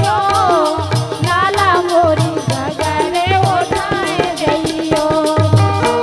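Bundeli folk music: a woman singing a wavering, ornamented melody over harmonium and a steady dholak drum beat.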